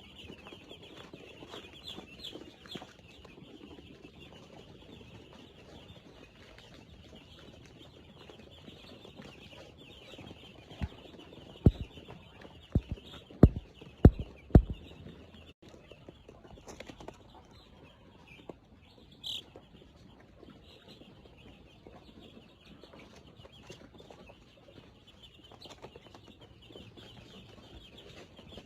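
A flock of chickens, a steady dense mass of high chirping and clucking. Five or six sharp, loud knocks come in quick succession about halfway through, and a single louder call follows a few seconds later.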